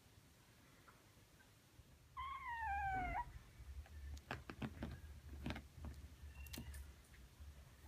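A kitten meows once, a single falling call about a second long, followed by a string of light clicks and taps.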